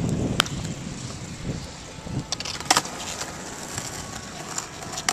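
Skateboard wheels rolling over asphalt, the rumble fading within the first second or so, then a few sharp clacks of the board, the loudest about two and a half seconds in.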